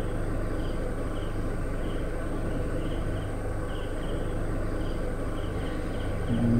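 Safari vehicle's engine running steadily, with short high chirps repeating roughly every half second over it and a brief low tone near the end.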